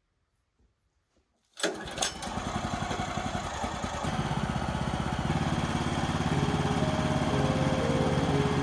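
Small gasoline engine of a Wood-Mizer LT15 sawmill starting: after near silence it catches suddenly about a second and a half in with two sharp clicks, then picks up speed and settles into a steady run.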